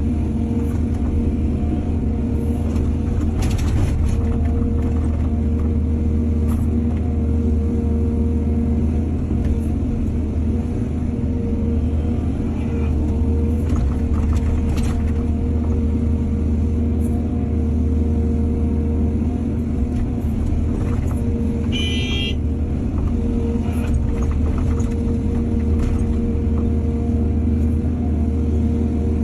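Heavy diesel engine of an excavator running steadily under load, with a few sharp metallic clanks and a brief high-pitched squeal about three-quarters of the way through.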